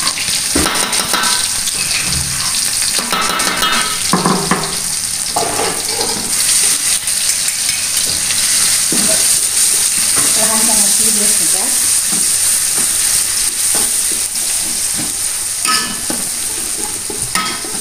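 Pounded onion paste sizzling steadily in hot oil in an aluminium wok, stirred with a metal ladle that scrapes against the pan now and then.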